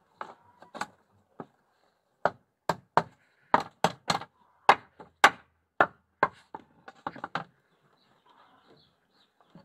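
A quick, irregular series of sharp knocks on wood, most likely goats knocking and stepping against the boards of a raised wooden slatted goat pen. The knocks come in clusters of two or three and stop near the end.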